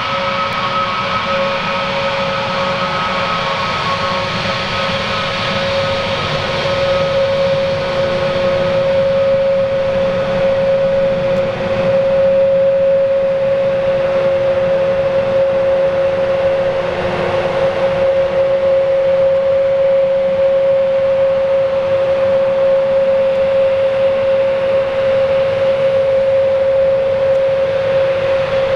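Jet engines of a Lufthansa narrow-body twin-jet airliner taxiing at low power: a steady whine with one strong held tone over a rushing noise. It grows somewhat louder over the first dozen seconds as the aircraft comes closer.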